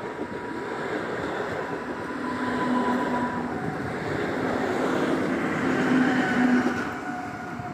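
ED161 electric multiple unit running on the rails as it pulls through the station: a dense rumble with a few steady whining tones over it. It grows louder to a peak about six seconds in, then eases off.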